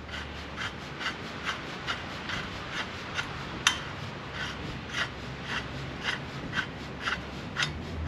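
Clutch puller being threaded by hand into a Yamaha Vector's primary clutch: a steady rasping rub of threads, with a light tick about twice a second and one sharper click about halfway through.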